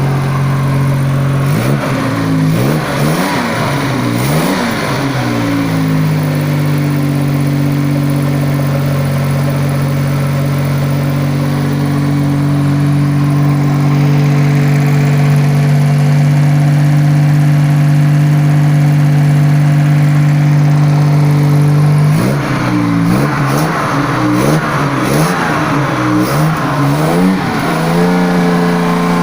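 Jaguar XK140's 3.4-litre straight-six engine running shortly after its first start following restoration. It is revved up and down a few times, holds a steady fast idle for about fifteen seconds, then is revved repeatedly again before settling at a slightly higher idle near the end.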